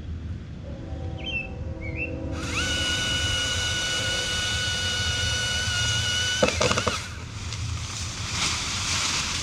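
Chainsaw cutting, a steady high whine over chain noise that starts about two seconds in and winds down after about four seconds, followed by a rough rushing noise.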